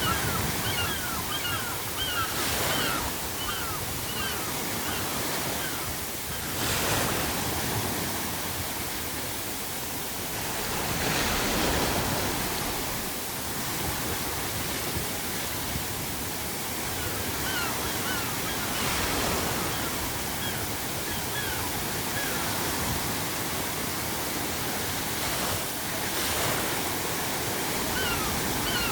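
Sea waves breaking on the shore, swelling in surges every few seconds over a steady wash of surf. Gulls call in short runs of repeated cries near the start, around the middle and again at the end.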